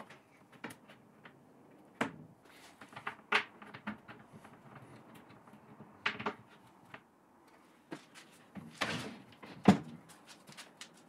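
Wooden sliding cabinet doors being pushed along their runners by hand: scattered knocks and scrapes of wood on wood, with a longer scrape and then the loudest knock near the end.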